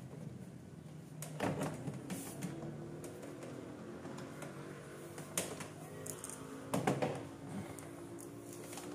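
A few scattered clicks and knocks of scooter parts being handled during reassembly, the loudest pair about seven seconds in.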